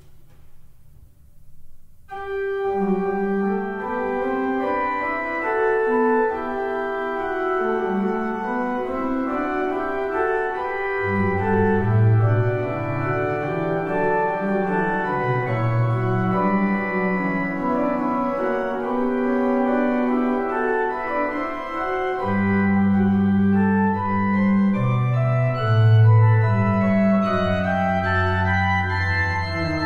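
Organ music: slow, held chords begin about two seconds in, and deep bass notes join around the middle.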